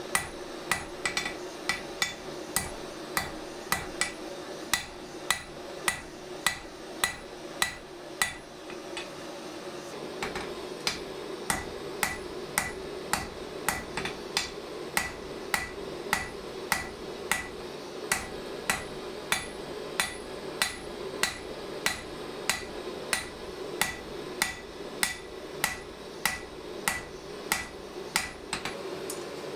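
Hand hammer striking red-hot steel on an anvil, about two blows a second, each with a short metallic ring. The hammering pauses for about two seconds a third of the way in, then resumes.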